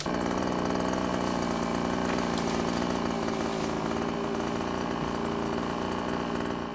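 Chainsaw engine running at a steady speed, cutting in abruptly and fading out near the end.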